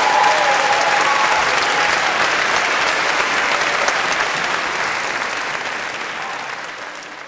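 Audience applauding after a choir performance. A held note fades out in the first second or two, and the applause grows quieter toward the end.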